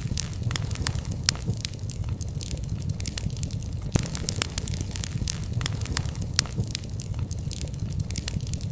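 Wood fire crackling: many sharp pops and snaps at an irregular pace over a steady low rumble of burning.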